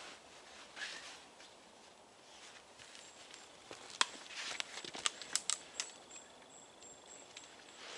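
A canvas rucksack being lifted and swung onto the back, with rustling of the pack and clothing and a cluster of sharp clicks and knocks from its fittings about four to six seconds in, over light steps on dry forest-floor litter.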